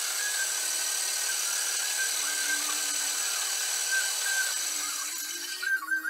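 Milling machine spindle running as a small drill bit drills into a metal flange: a steady whine with a hiss, which stops about five and a half seconds in.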